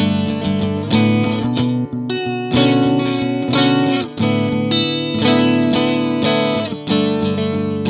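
Electric guitar, a Fender thinline Jaguar through a Vox AC15 amp, playing strummed chords that ring out in turn, shimmering through a Native Audio Pretty Bird Woman chorus/vibrato pedal.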